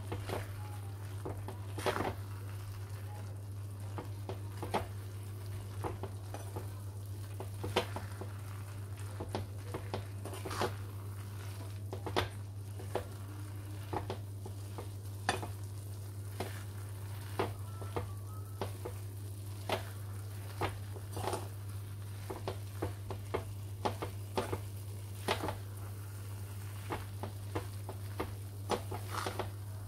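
Metal spatula stirring grated dry coconut through thick, hot sugar syrup in a pan, with irregular scrapes and taps against the pan about once or twice a second over the soft sizzle of the cooking mixture. A steady low hum runs underneath.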